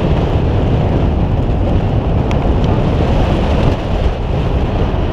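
Wind buffeting the microphone at the bow of a boat under way at sea, a steady low rumbling rush with the noise of the boat and water beneath it.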